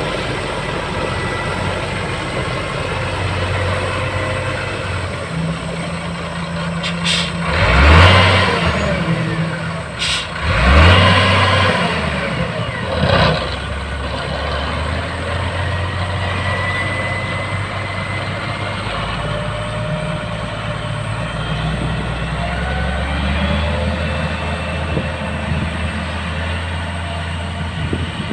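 Motor grader's diesel engine running steadily, swelling loudly twice about a third of the way in and once more, less strongly, a few seconds later.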